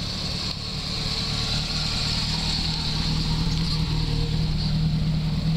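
Old Dodge motorhome's engine running as it drives slowly past, a steady low drone that grows louder as it comes close; the engine has an odd, strange sound.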